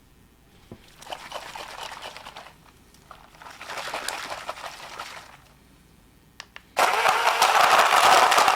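Ninja portable blender's motor switching on suddenly near the end and running loud and steady as it blends gummy rings. Before that come two shorter, quieter noisy stretches.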